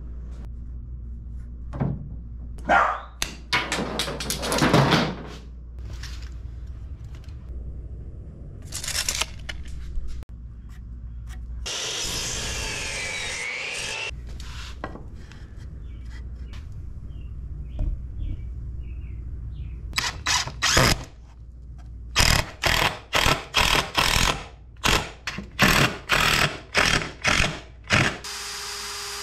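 Workshop tool sounds: scattered knocks and handling, then a power miter saw cutting through a wooden 2x4 about twelve seconds in, its pitch dipping under the cut and recovering. Near the end comes a quick run of sharp clatters, then a cordless drill starts up with a steady whine.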